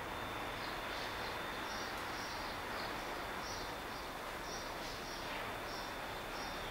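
Short high-pitched chirps repeating irregularly, one or two a second, over a steady hiss and a faint steady high whine.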